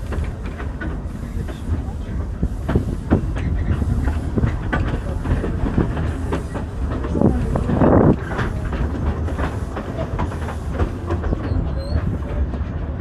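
Cripple Creek narrow-gauge steam train under way, heard from a passenger car. There is a steady low rumble with the wheels clicking and knocking over the rail joints, and a faint hiss pulsing about every three-quarters of a second. A louder rush of noise comes about seven to eight seconds in.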